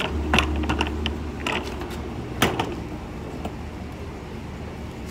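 Plastic utility cart being handled: its wheels rumble over pavement during the first second, then a few sharp plastic knocks and clatters as its tray is lifted. The loudest knock comes about two and a half seconds in.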